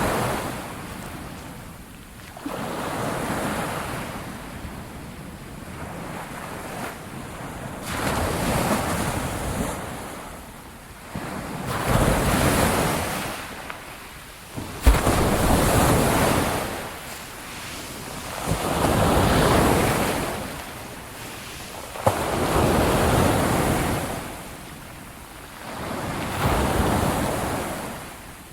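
Ocean surf: waves breaking and washing in, each a swell of rushing water that builds and falls away, a new one about every four seconds. A couple of the breaks land with a brief sharp crack.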